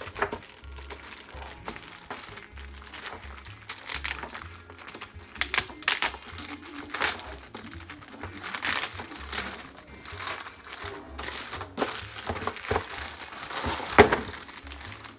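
Packaging being unwrapped and handled, crinkling and rustling in irregular bursts, with a sharp crack near the end. A low background music bass line runs underneath.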